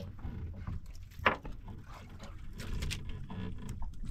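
Wind and water noise aboard a small outrigger fishing boat, a steady low rumble with scattered small clicks and a sharper knock a little over a second in.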